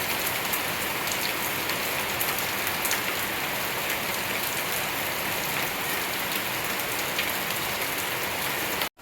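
Steady rain falling on surfaces, with scattered sharper drip ticks.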